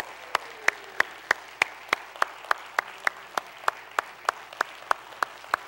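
Hand clapping: one person's claps close by at a steady pace of about three a second, over softer applause from a congregation.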